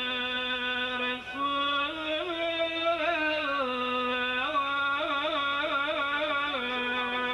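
A man's solo voice chanting a salawat (salutation on the Prophet) in a long drawn-out melisma. He holds a low note, climbs step by step to higher notes and comes back down, with a run of quick trills in the middle before settling on the low note again.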